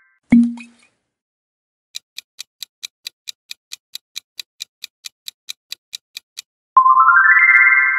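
Ticking-clock countdown timer sound effect: sharp, regular ticks about four or five a second for roughly four and a half seconds. It is preceded near the start by a short low thump and followed near the end by a bright rising chime that rings on.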